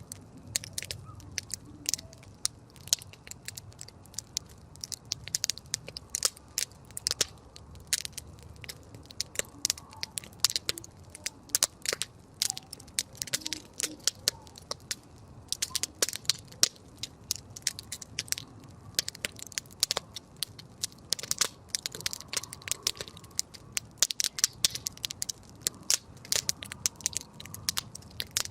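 Wood campfire crackling: irregular sharp snaps, several a second, over a soft low rumble of the burning fire.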